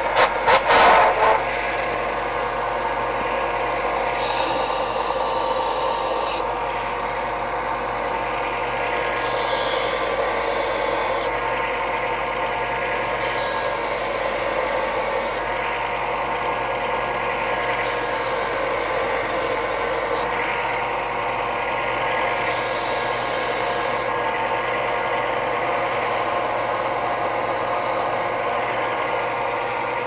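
Benchtop belt-and-disc sander running steadily while a wooden spatula is pressed against the moving sanding belt, the wood rasping on the abrasive as it is taken down. The grinding is loudest in the first second or so, and then comes in several separate passes over the steady motor hum.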